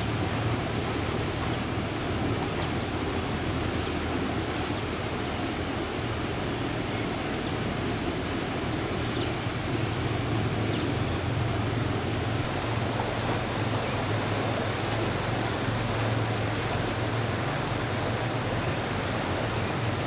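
Insects droning steadily in a high, continuous whine. About twelve seconds in it changes to a sharper, single high tone with a faster pulsing shimmer above it.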